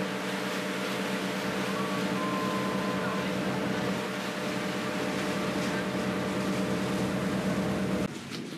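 Small motorboat's engine running steadily with an even hum, cutting off suddenly about eight seconds in.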